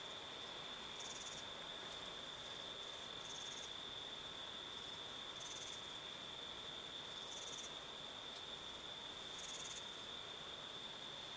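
Night insects: one steady high-pitched trill runs on unbroken, and a second, higher short buzzing call repeats about every two seconds.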